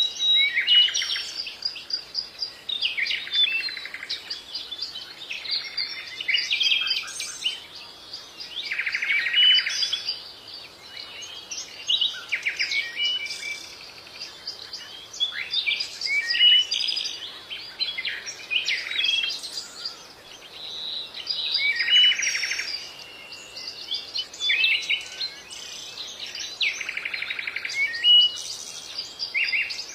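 Songbirds chirping and singing: many short high chirps and whistles, with a denser buzzy trill every few seconds.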